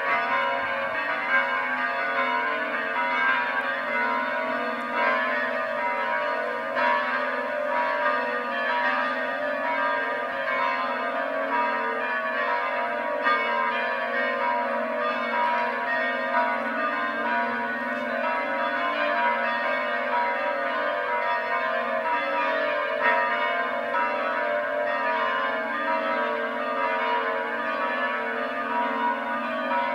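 The church bells of a Romanian Orthodox monastery pealing, several bells of different pitch struck in quick succession so that their tones ring over one another without a break.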